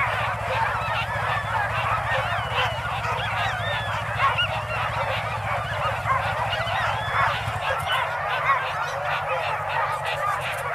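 A chorus of many sled dogs yelping and howling at once in a dense, wavering din: harnessed teams excited and eager to run at a race start. A low steady hum underneath cuts out about three-quarters of the way through.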